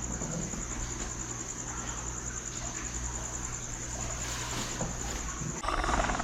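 Crickets chirping in a continuous, evenly pulsing high trill over a low steady hum. A louder, rougher sound breaks in about five and a half seconds in.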